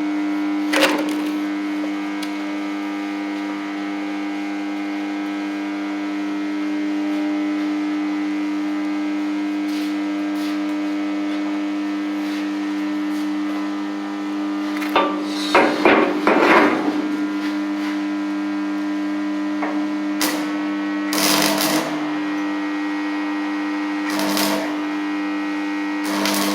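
Welding machine humming steadily, with a few short bursts of crackle and knocks, the longest cluster about halfway through and another about three quarters of the way in.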